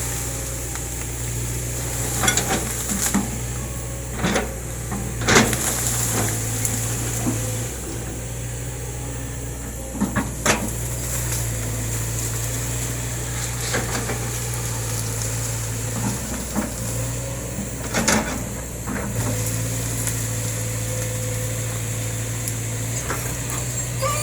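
Kobelco hydraulic excavator's diesel engine running steadily, with its hum rising and easing now and then as it works, and sharp metallic clanks and knocks every few seconds.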